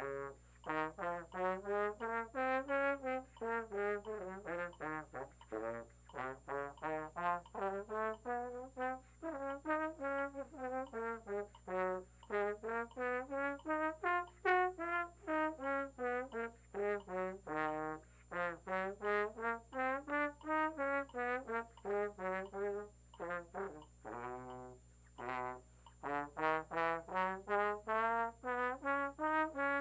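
Tenor trombone playing a scale exercise: quick tongued notes running up and down the scale in repeated arcs, with a short break about three-quarters of the way through.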